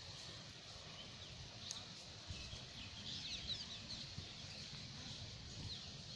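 Birds chirping faintly, with a quick run of chirps about three seconds in, over a low rumble.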